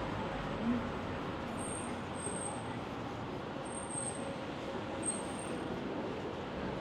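Steady outdoor traffic noise, with a few brief high-pitched chirps over it.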